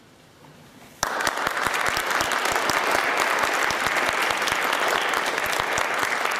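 Audience applause that breaks out suddenly about a second in and carries on as dense, steady clapping.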